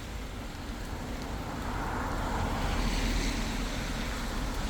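Wind buffeting the microphone over a steady outdoor rushing noise, which swells broadly for a couple of seconds in the middle.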